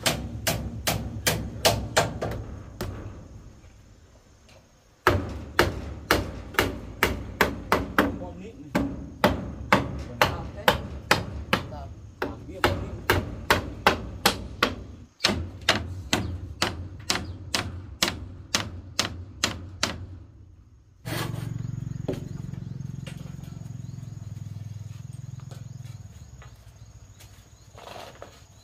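Hammer driving nails into wood: quick, even strikes about three a second in several runs that start and stop abruptly. Near the end the strikes give way to a steady low rumble with a knock or two.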